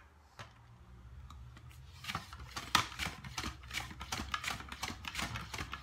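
A leek being sliced on a Starfrit Pro mandoline: from about two seconds in, a quick, uneven run of crisp clicking cuts as it is pushed back and forth across the blade, over a low steady hum.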